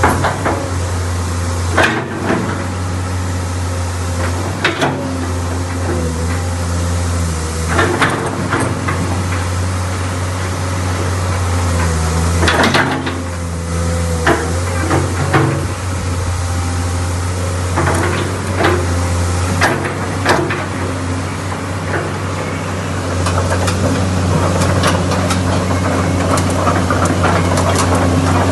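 Komatsu PC200 excavator's diesel engine running steadily, with repeated short sharp knocks and clanks every second or two.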